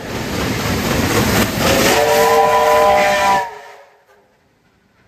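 Steam locomotive with loud steam hiss, and its whistle sounding a chord of several notes for about a second and a half, starting about two seconds in. All of it cuts off suddenly after about three and a half seconds.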